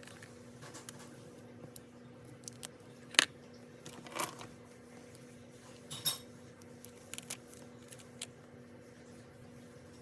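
Scattered small clicks, taps and brief rustles of stationery being handled on a desk, the sharpest tap about three seconds in, over a faint steady hum.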